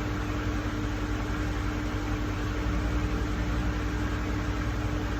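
Steady background hum with an even hiss and a constant low tone, unchanging throughout.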